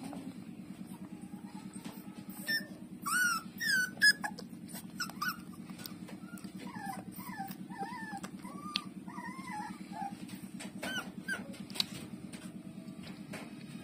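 Nursing puppies whimpering and squeaking, with many short high squeals that come loudest about three to four seconds in and again in a run of softer squeaks in the middle, over a steady low, rapidly pulsing sound.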